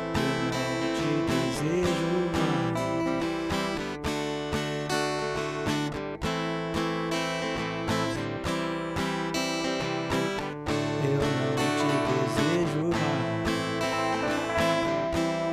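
Acoustic guitar strummed in a steady rhythm of chords, with no singing.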